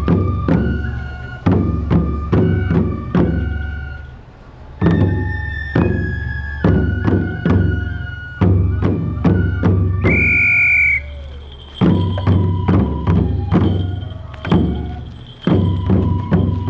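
Japanese folk festival music: drums struck in a steady driving pattern, with ringing metallic strikes over the deep thuds. A single high piped note sounds for about a second around the ten-second mark.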